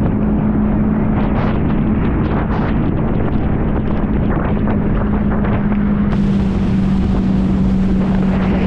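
Wind buffeting the microphone and water rushing and splashing against an inflatable tube towed at speed behind a motorboat, over a steady low drone.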